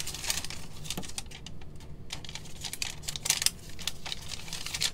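Rustling and light irregular clicks and taps of craft supplies being handled and rummaged through.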